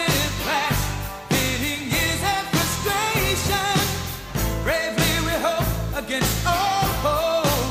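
Background music: an upbeat pop song with a sung lead vocal over bass and drums.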